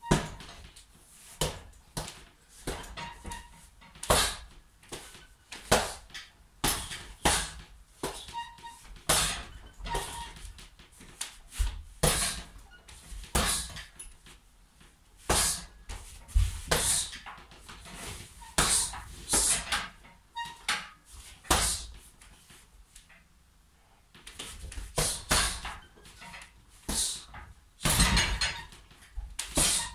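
Kicks and punches landing on a hanging heavy bag, each a sharp thud, coming singly or in quick flurries of two or three with short pauses between. The hits stop for a couple of seconds about two-thirds of the way through, then start again.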